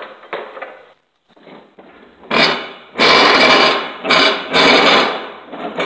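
Riding-mower cutting deck scraping and dragging across the garage floor as it is shoved under the tractor, in several loud pushes starting about two seconds in, after lighter knocks and rustling.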